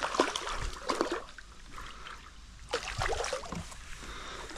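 Water splashing and dripping with small knocks, in two spells: one at the start and another about three seconds in.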